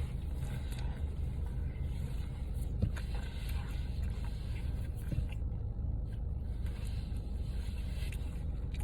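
Steady low hum of an idling car, with a couple of faint clicks about three and five seconds in.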